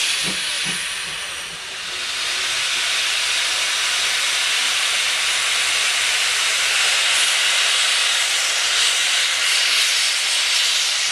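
Steam locomotive blowing steam from its open cylinder drain cocks: a loud, continuous hiss. A few soft chuffs come in the first second.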